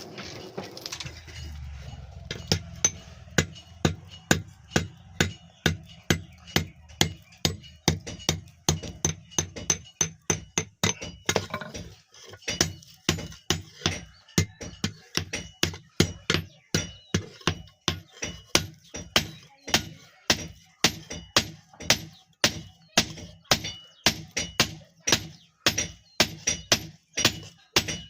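Hand hammer striking a billhook blade on an anvil, forging it in a steady rhythm of about two ringing metallic blows a second, with a short pause about halfway through.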